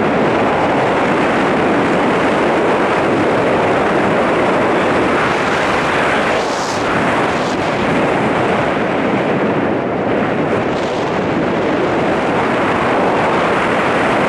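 Wind rushing over and buffeting the camera microphone during a tandem parachute descent under an open canopy: a loud, steady rush with no let-up.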